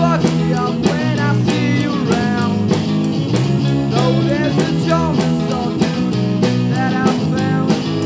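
Rock band playing: two distorted electric guitars over a drum kit keeping a steady beat.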